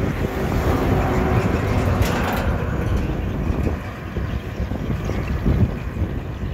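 Traffic noise on a highway: a steady low rumble of wind and road noise with a large truck's engine droning close by, and a brief hissing whoosh about two seconds in.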